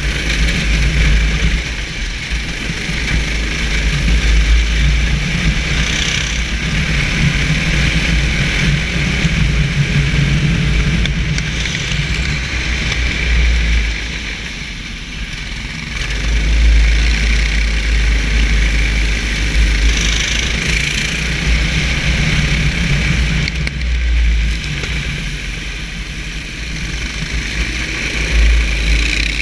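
Racing kart's engine heard from on board, pulling hard along the straights and easing off twice for corners, about 14 and 24 seconds in, with a heavy low rumble and tyre hiss on a wet track.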